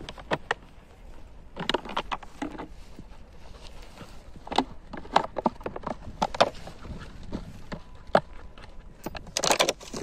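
A crumpled plastic bottle crackling and snapping in irregular bursts as a German Shepherd chews and tugs on it, with a dense burst of crackling near the end.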